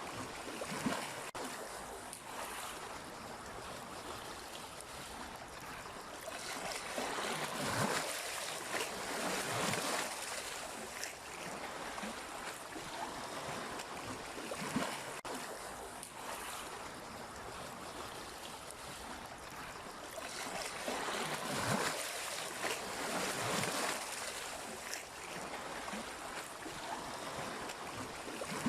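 Sea waves washing onto the shore in a continuous hiss of surf, swelling louder twice, about a third of the way in and again about three-quarters through, as waves break and run up.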